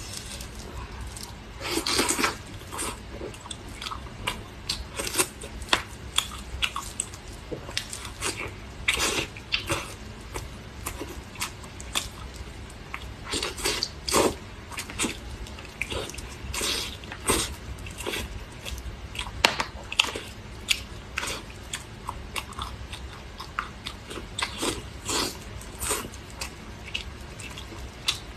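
Close-up sound of a person biting and chewing pork ribs: irregular sharp mouth clicks, with louder clusters every few seconds.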